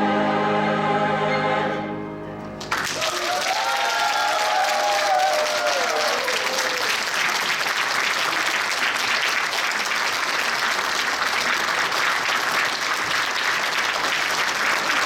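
A women's choir holds its final sung chord, which fades out about two seconds in. Moments later the audience breaks into steady applause, with a few voices calling out during its first few seconds.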